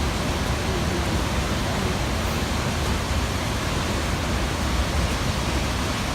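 Waterfall's falling water rushing steadily, a dense even hiss-like roar with a strong low rumble underneath.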